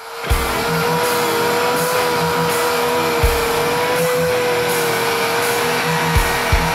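Electric drill spinning a wire brush against a Honda ST1100 final drive housing to clean it: a steady motor whine over the scratchy rasp of the wire on the metal. It starts up at the beginning, and the brush knocks dully a few times as it catches.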